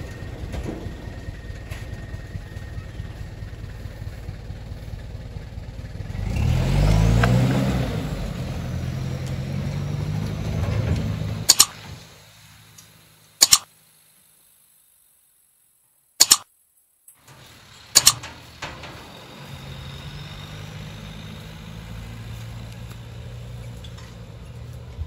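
Dump truck engine running low, then revving up about six seconds in and running louder as the truck pulls away. In the middle the sound is broken by four sharp clicks and a few seconds of dropout, and then the engine is heard again, fainter, as the truck moves off.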